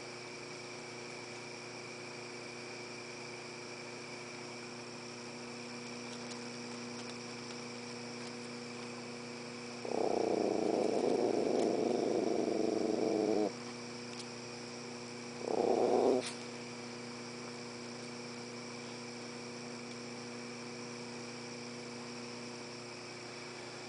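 A dog growling twice: a long growl of about three and a half seconds, then a short one a couple of seconds later, over a steady insect chorus.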